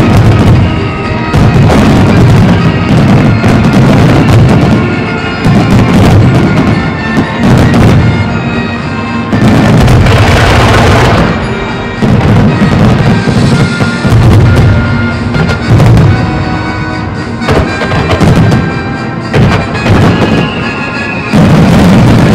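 Fireworks bursting in quick succession with loud bangs over a musical soundtrack, with a dense stretch of crackling about ten seconds in.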